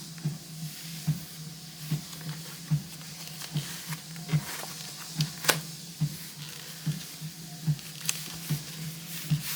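Quiet handling of a leather planner cover and notebook, with a sharp click about halfway through and a weaker one near the end, over a steady low hum that pulses a little more than once a second.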